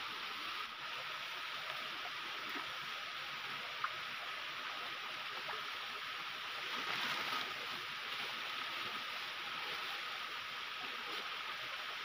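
Steady rush of a small waterfall and the rocky stream below it, with one sharp click a little under four seconds in.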